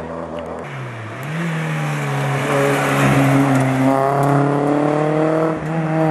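Small hatchback rally car engine at high revs as the car comes through a bend and accelerates away, with tyre noise under it. The engine note dips and recovers about a second in, then holds high and rising, with a short break near the end.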